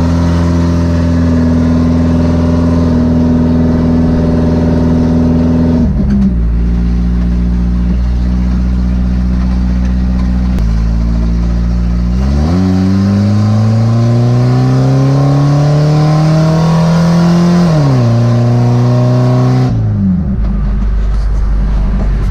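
Volvo B230 2.3-litre four-cylinder engine pulling the car, heard from inside the cabin, fitted with a higher-lift, longer-duration A camshaft that makes it run lumpier. The revs step down about six seconds in, hold steady, then climb steadily from about twelve seconds before stepping down again near eighteen seconds and dropping further near twenty.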